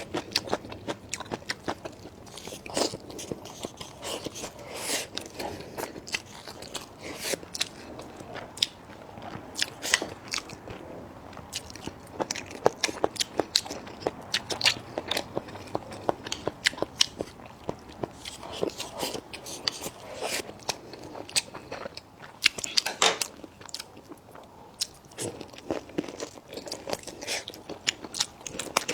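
A person chewing and biting into crunchy food, with many short, irregular crunches and clicks throughout.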